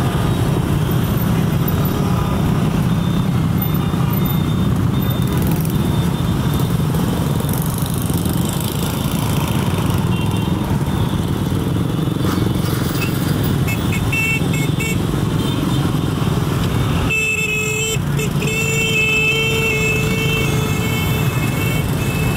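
Steady low rumble of engines and street traffic, with motorbikes among it. A steady high tone sounds for a few seconds near the end.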